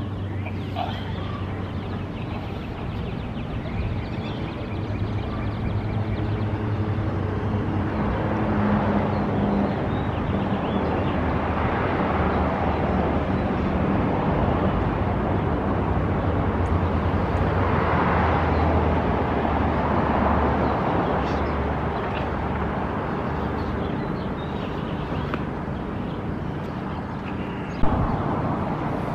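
Road traffic outside: a steady low engine hum with cars passing, the rushing sound swelling and fading twice. A sharp click comes near the end.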